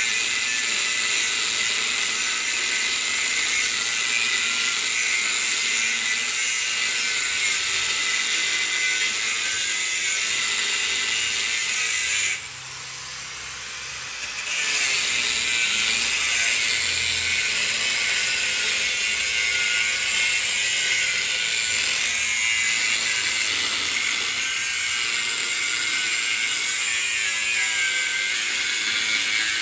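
Angle grinder with a cutting disc cutting through the steel shell of an LG compressor, a steady high grinding hiss. Near the middle it drops away for about two seconds as the disc comes off the metal, then resumes.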